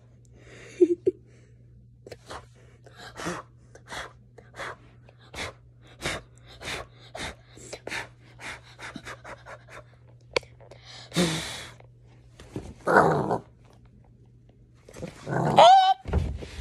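Puppy panting rapidly close to the microphone, about three quick breaths a second, with a couple of louder huffs later on. Near the end comes a short, high-pitched rising cry.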